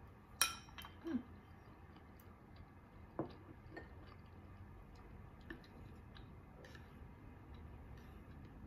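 A ceramic rice bowl set down on a wooden table: a sharp ringing clink about half a second in, then two softer knocks. After that come light, scattered clicks of chopsticks against the bowls.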